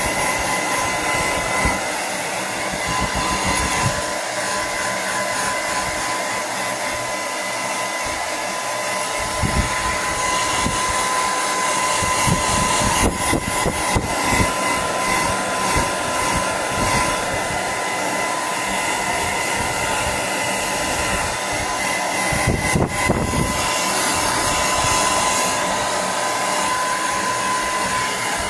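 Handheld hair dryer running steadily, blowing air onto a dog's wet fur: a constant rush of air with a steady whine.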